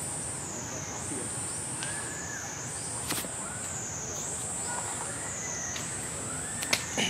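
Outdoor ambience: a steady high-pitched drone that rises and falls about every two seconds, with a few faint short calls and a sharp click near the end.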